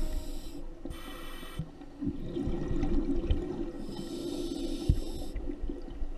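Scuba breathing through a regulator underwater: a short hissing breath about a second in and a longer one around four seconds in, over a steady low bubbling and crackle.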